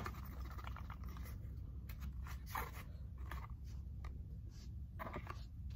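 Faint scrapes and light clicks of a Polymer 80 Glock 19 pistol in a hard plastic holster being handled and turned over in the hands, a few scattered through, over a low steady hum.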